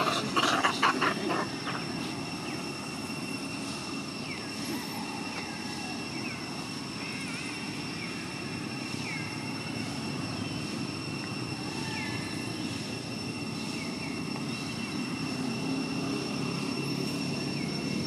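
Outdoor ambience in the open: a steady low rumble like distant engines, a steady high-pitched whine, and scattered short, falling chirps from small birds every second or two. There is a louder burst of rustling noise in the first second and a half.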